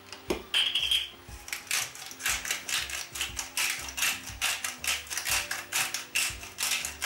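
Hand pepper mill twisted over a pan, grinding with a quick run of rasping clicks, about four to five a second.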